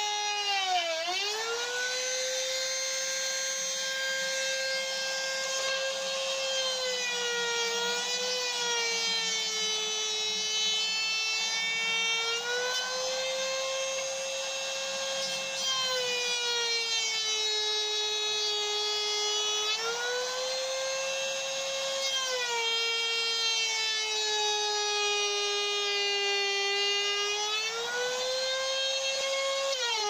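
Makita trim router running at full speed and cutting a finger-pull recess into the edge of a wood door, a high steady whine. Its pitch sags and recovers several times as it is pushed through the cut.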